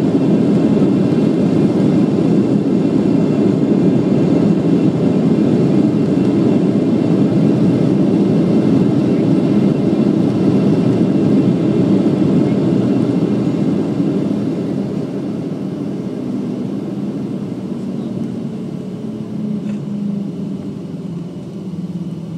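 Cabin noise of a Boeing 737-800 on its landing rollout: a loud, steady roar of its CFM56 engines and the rolling airframe, which eases off about two thirds of the way through as the jet slows down the runway.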